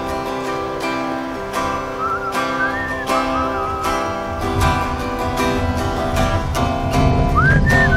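Acoustic guitar strummed in steady chords, with a whistled melody coming in about two seconds in and again near the end.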